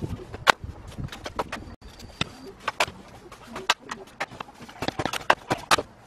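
Leafy bamboo branches being bent, snapped and stripped by hand: a run of irregular sharp cracks and snaps. A bird calls briefly about two seconds in.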